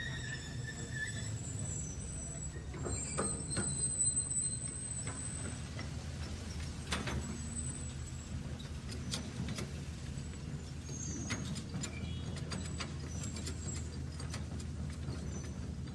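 Radio-controlled toy excavator's electric motors and gears humming steadily as it swings its boom and tips a bucket of sand into a toy dump truck. Scattered sharp clicks run through it.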